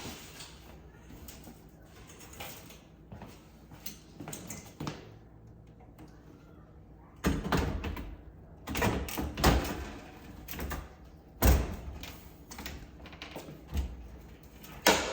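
Wall oven door being lifted and fitted onto its hinges: a few light clicks of handling, then a string of knocks and clunks from about seven seconds in, the heaviest one a little past eleven seconds.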